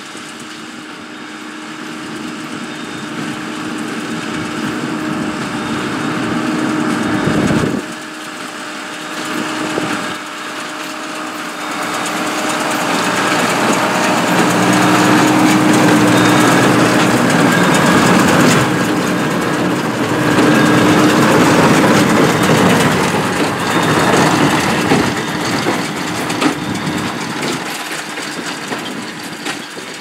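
New Holland tractor engine running steadily under load while pulling a working New Holland BB940 large square baler through a hay windrow. The sound grows loud as the machines come close about halfway through, then fades.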